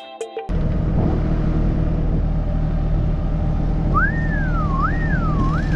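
A John Deere 17G mini excavator's diesel engine running steadily. About four seconds in, a short wavering whistle swoops up and down three times over it.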